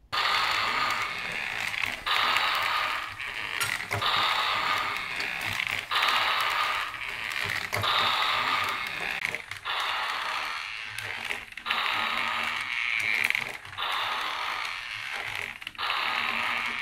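Motorized TOMY Zoids Gojulas Giga model switching on suddenly and walking: its plastic gearbox whirs and clatters in repeating cycles of about two seconds. The cycles come with the toy's built-in footstep sound effects for its upright combat mode.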